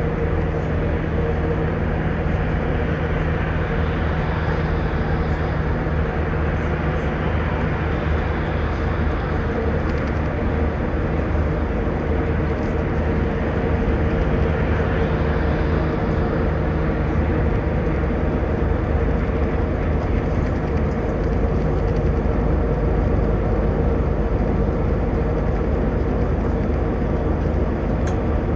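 Tour bus running at road speed, heard from inside the cabin: a steady low engine hum over road noise, with a few faint ticks and rattles.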